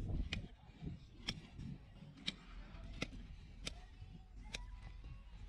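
Hoof-trimming tools working on a horse's hoof: a series of sharp snaps about once a second, over low handling rumble that is heavier at the start.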